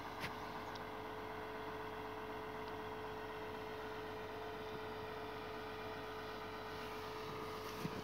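Tracked forestry harvester's engine running steadily: a continuous hum with one held tone, and a single brief click about a quarter second in.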